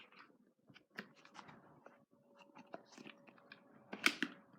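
Faint scattered plastic clicks and rustling from a toy foam-dart blaster being handled, with a sharper pair of clicks about four seconds in.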